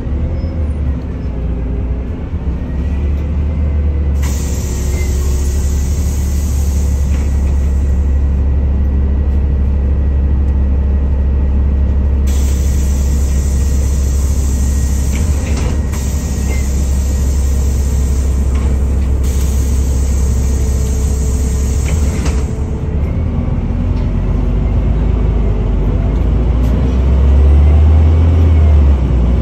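Engine of a NefAZ-5299 city bus running at idle while the bus stands still, a steady low rumble heard from inside the cabin. A hiss comes and goes several times, and the rumble swells near the end.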